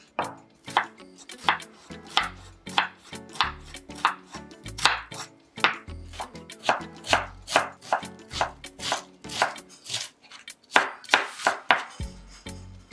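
Chef's knife dicing an onion on a bamboo cutting board: a steady run of crisp chops, about two to three a second, each one a knock of the blade through the onion onto the wood.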